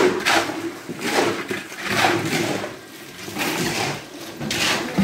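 Steel shovel scraping and slopping through wet concrete mix in repeated strokes, about one a second.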